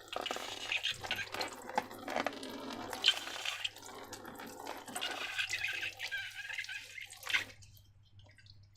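Wet, liquid sounds of slime mixture being poured and worked, an irregular run of sticky clicks and swishes that cuts off suddenly about seven and a half seconds in.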